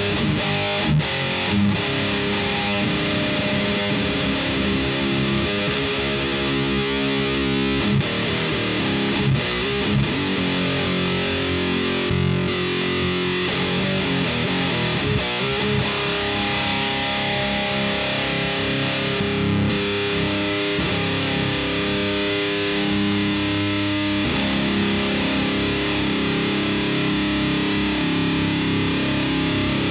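Electric guitar playing heavy riffs and chords through the thiSHEAvyearth Grim distortion pedal. The sound changes chord every few seconds, with short breaks about 12 and 19 seconds in, and ends on sustained chords.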